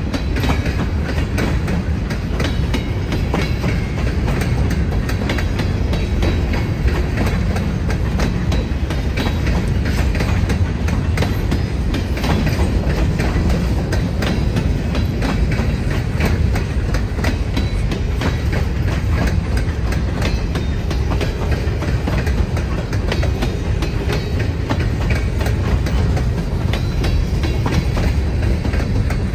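Freight train rolling steadily past, its cars' wheels clacking over the rail joints in an irregular run of clicks over a continuous rumble.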